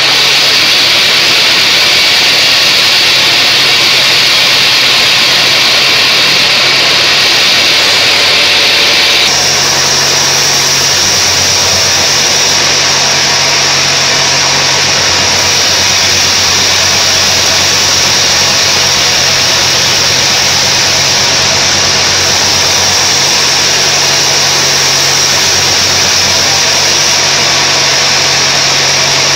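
Sawmill bandsaw ripping a mahogany log into boards: the steady hiss of the blade cutting through wood over the hum of the saw's motor. The tone of the hiss shifts slightly about nine seconds in.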